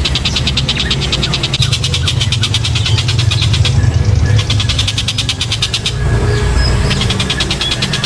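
Dollarbird (tengkek buto) giving a rapid rattling chatter in long runs, breaking off briefly about four seconds in and again around six seconds, over a steady low hum.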